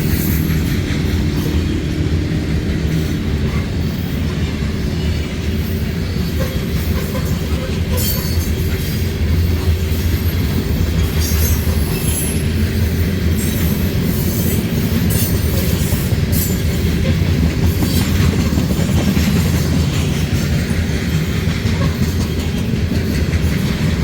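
Train rolling past at close range: a steady heavy rumble of wheels on rail, with irregular clicks as the wheels pass over rail joints.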